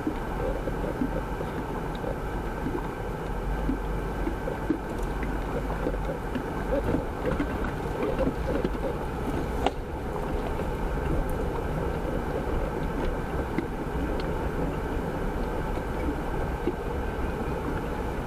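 Jeep driving, its engine running steadily, with scattered small knocks and rattles.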